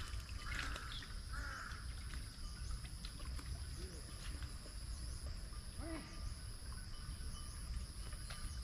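A steady high-pitched insect drone with birds calling over it: three short harsh calls in the first second and a half, another call about six seconds in, and scattered faint chirps.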